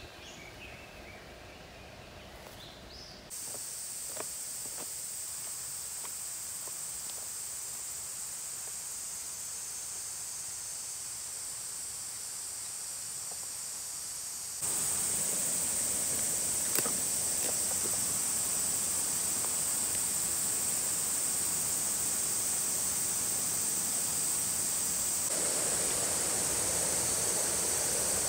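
Steady rush of flowing water from a stream or waterfall. It jumps louder abruptly twice, about three seconds in and again about halfway. A few faint bird chirps come at the start.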